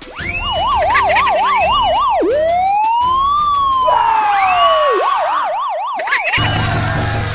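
Electronic police siren: a fast up-and-down yelp, then a single slow rise and fall about two seconds in, then the fast yelp again for about a second, with higher rising whoops over it.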